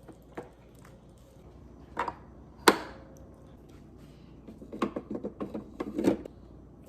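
Hard knocks and clatter of an espresso machine and its packaging being handled during unboxing: a knock about two seconds in, a sharper, louder one shortly after, then a quick run of clattering knocks near the end.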